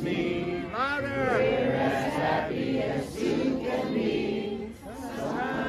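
A crowd of people singing together in unison, one voice sliding up and then down about a second in.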